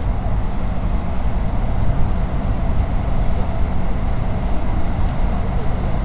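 Steady low rumble of city background noise, without distinct events.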